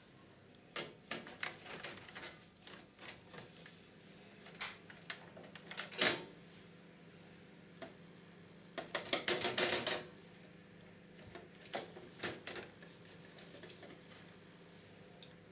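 Long screwdriver driving screws into a VCR's sheet-metal top cover: irregular metallic clicks and scrapes, with a louder knock about six seconds in and a quick run of clicks about nine seconds in.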